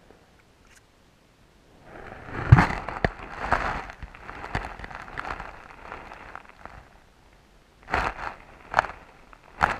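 Sound recorded underwater through a camera's housing. After about two seconds of near silence, a muffled hiss rises, with knocks and scrapes against the housing. Several sharp knocks come in the last two seconds.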